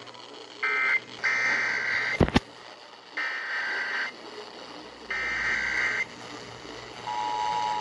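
Emergency Alert System signals received over radio: a short final end-of-message data burst, a sharp click about two seconds in, then three one-second bursts of screechy digital header data. Near the end the steady two-tone attention signal begins.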